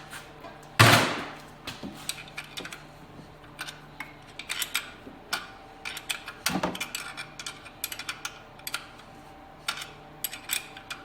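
Hand tools clanking and clicking on metal while a stuck alternator bracket bolt is worked loose with vice grips. There is one loud clank about a second in, then a run of short, irregular metal clicks and taps.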